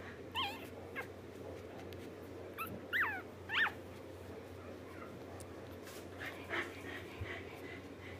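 Three-day-old Shetland sheepdog puppy squeaking and whimpering, about five short, high calls that mostly fall in pitch. The loudest call comes about three and a half seconds in.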